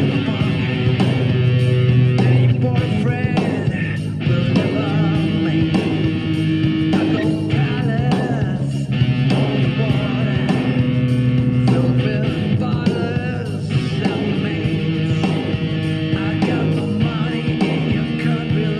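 Electric guitar, a Wylde Audio played through a Yamaha THR amplifier, playing lead lines with bent, wavering notes along with full rock band music.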